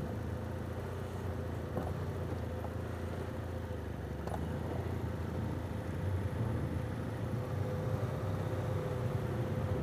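BMW F800GS parallel-twin engine running steadily at low speed as the motorcycle rides up the ramp onto the ferry, with a faint steady hum above it.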